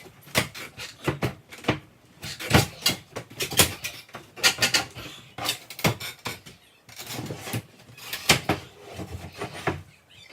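A fast, irregular run of knocks and bangs, several a second: hammer and nail puller work tearing a kitchen countertop and backsplash off the cabinets.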